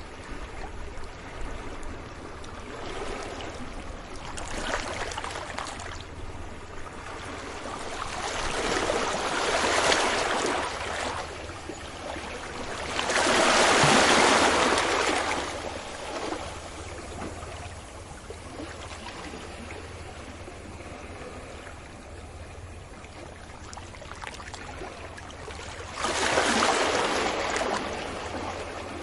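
Ocean waves washing onto a beach: surges of surf rise and fall every few seconds, with the loudest about halfway through. Another wave breaks suddenly near the end.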